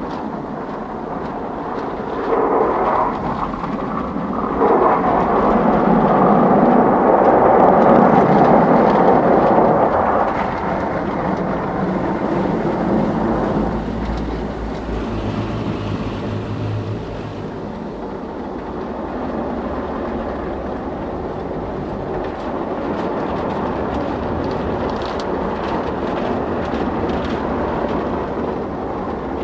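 Automatic car wash heard from inside the car: a continuous rush of water spray and wash machinery working over the car's body, loudest from about five to ten seconds in, with a brief low hum around the middle.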